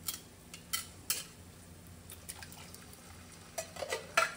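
Sharp metal clinks and knocks of a spoon and can against a saucepan as canned diced tomatoes go in, over a faint sizzle. The knocks are scattered at first and come in a quick cluster near the end, which holds the loudest one.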